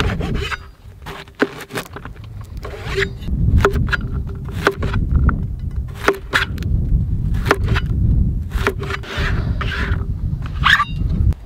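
A large knife chopping yellow squash on a plastic cutting board: sharp chops roughly once a second, each with a brief ring, over a low rumble. Near the end the cut pieces are scraped and gathered on the board.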